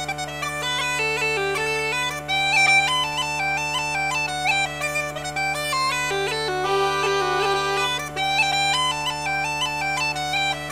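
Background music: a fast, stepping melody with quick ornamental notes over steady, unchanging drone notes.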